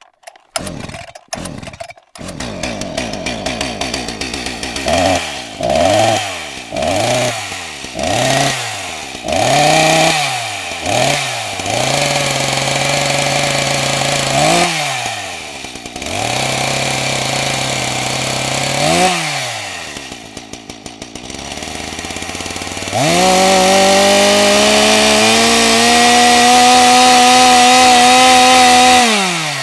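Chainsaw engine starting with a few sharp sputters, then idling with a string of short throttle blips and a couple of bigger revs. About three quarters of the way through it is opened up to full throttle and held there at a high steady pitch, then drops back right at the end.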